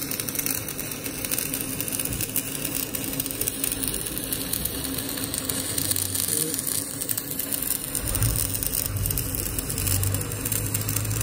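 Electric arc welding on a steel pin: the arc's steady crackle and hiss. A low hum joins in about eight seconds in.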